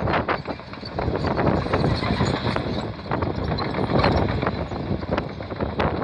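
Caterpillar D5N crawler dozer working a slope: its diesel engine running under irregular clanking knocks from the steel tracks.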